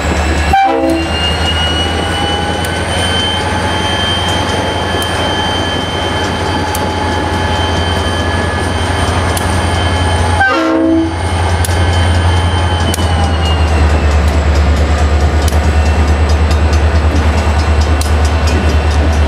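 EMD SD40-2 and SD40-3 diesel locomotives working hard as they pass close by, their 16-cylinder 645 engines revved up to pull a freight up a grade. A deep steady engine drone lies under a high thin whine, and it grows louder after about twelve seconds as the next unit draws level.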